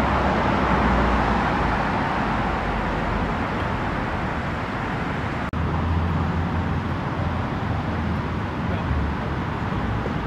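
Steady road traffic noise with a low rumble of passing vehicles. The sound cuts out for an instant about five and a half seconds in.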